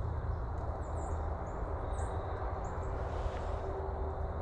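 Steady rushing wind noise on the microphone in an open field, with a few faint, high, short bird chirps.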